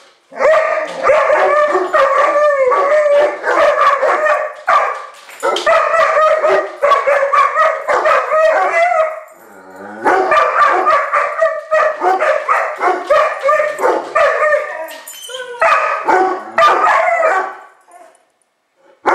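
Dogs howling and barking over and over in long, excited runs, breaking off briefly about halfway through and again near the end.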